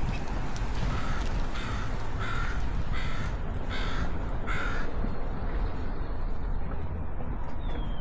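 A bird calling six times in an even series, harsh calls about two-thirds of a second apart that stop about five seconds in, over a steady low rumble of outdoor background noise.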